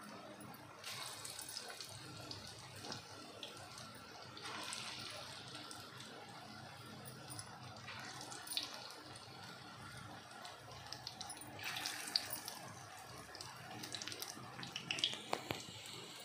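Bottle gourd and gram-flour pakora batter sizzling in hot oil in an iron kadhai, a steady hiss with sharp crackles and pops. The hiss surges louder a few times, as when fresh batter is dropped into the oil.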